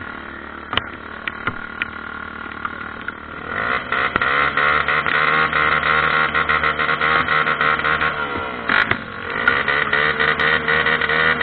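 Dirt bike engine running under throttle. It is quieter for the first few seconds, revs up and holds high, eases off briefly near the end, then revs up again.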